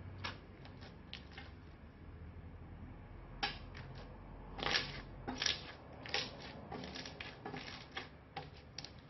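Purple slime being kneaded, pressed flat and stretched by hand, giving irregular crackling clicks and pops. A few at first, then many in quick clusters from about three seconds in.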